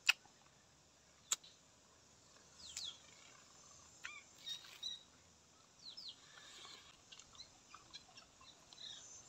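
Faint wild bird calls, a series of short high chirps and quick downward glides, over quiet outdoor ambience. Two sharp clicks in the first second and a half are the loudest sounds.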